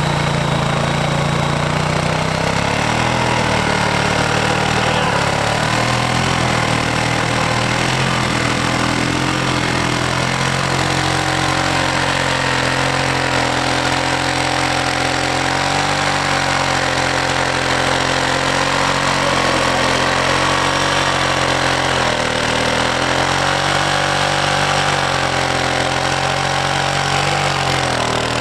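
Four-wheeler (ATV) engine running steadily, its pitch drifting up and down a little as the engine speed changes.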